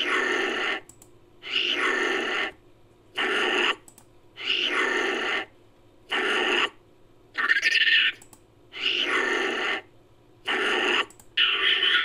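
Homemade creature sound effect for a Philippine long-tailed macaque: a string of short animal-like calls, each under a second, coming about once every second and a half.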